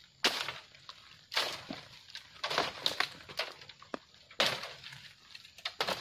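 Footsteps crunching through dry bamboo leaves and undergrowth, roughly one step a second, with leaves and stems rustling between the steps.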